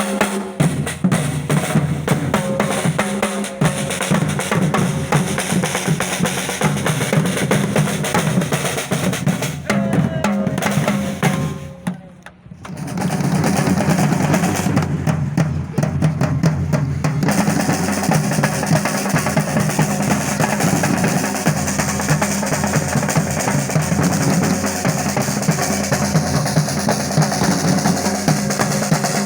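Music with a busy, steady drum beat; it fades out briefly about twelve seconds in and comes straight back.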